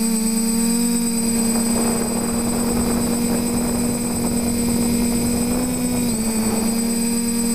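TBS Discovery quadcopter's motors and propellers running with a steady whine, with wind noise rising through the middle; the pitch drops slightly about six seconds in.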